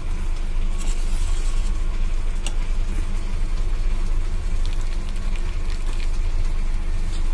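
Steady low rumble with a light sizzling hiss from a hot, frothy pot of dal, and one light click of the steel spoon about two and a half seconds in.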